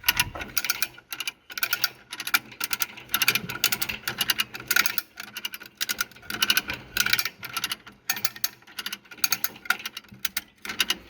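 Come-along hand winch being ratcheted, its pawl clicking in quick bursts stroke after stroke as it hauls the chain tight under load.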